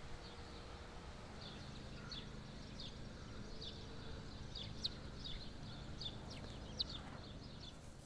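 Small birds chirping, many short high chirps in quick irregular succession, over a faint steady low outdoor rumble.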